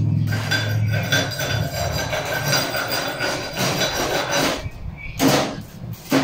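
Chipping hammer tapping rapidly on a steel plate, knocking slag off a freshly laid stringer weld bead, with a couple of louder single knocks near the end.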